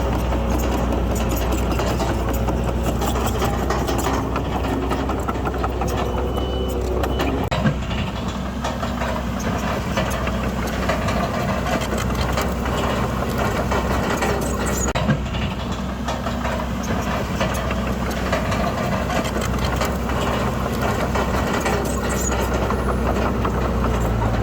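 Diesel engine of heavy earthmoving machinery running steadily with a low drone, with frequent small clanks and two louder knocks about a third and two-thirds of the way through.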